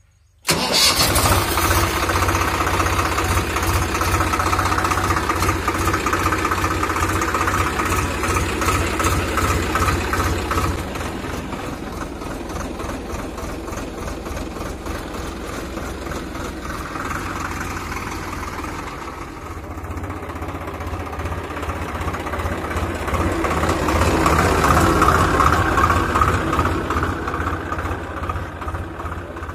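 Swaraj 735 FE tractor's three-cylinder diesel engine starting about half a second in, then running steadily. It gets quieter about ten seconds in and louder again in the last few seconds.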